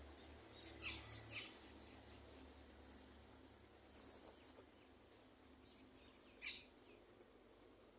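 Short high-pitched bird chirps over a faint background: a quick run of three about a second in, a faint chirp near the middle, and one louder chirp near the end.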